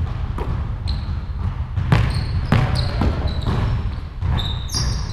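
A basketball bouncing several times on a hardwood gym floor, with short high sneaker squeaks as the players cut and stop. A steady low rumble runs underneath.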